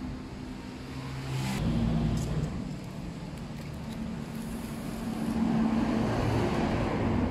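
Low engine rumble of road traffic, swelling louder about five seconds in.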